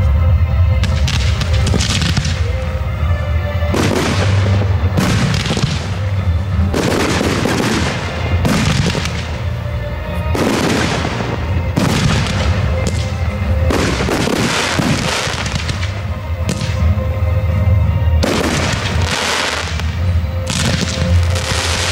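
Fireworks display: fans of comets fired in quick succession, a sharp shot every one to two seconds, over music playing along with the show.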